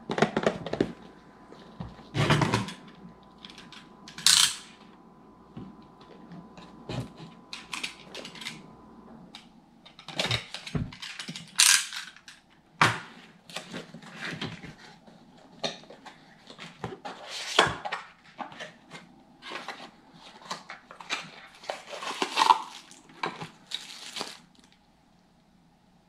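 Unboxing handling noise: a small cardboard product box being opened and emptied, with cardboard flaps and inserts scraping and tapping, wrapping rustling and parts set down on a table. The sounds come in irregular bursts, with a few sharper knocks among them.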